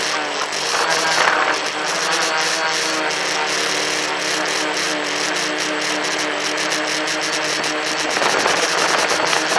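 Tricopter's electric motors and propellers running at a steady pitch, heard through the onboard phone's microphone with air rushing over it. The rushing gets louder around a second in and again near the end.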